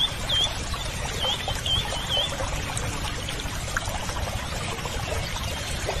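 Water trickling and running steadily, with five short high chirps from a small bird in the first two seconds or so.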